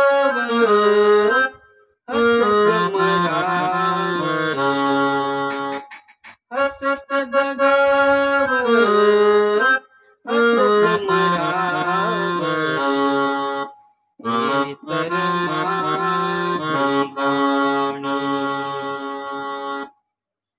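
Electronic keyboard playing a slow single-line song melody in a sustained voice whose notes hold without fading. It comes in five phrases of about four seconds each, with brief breaks between them.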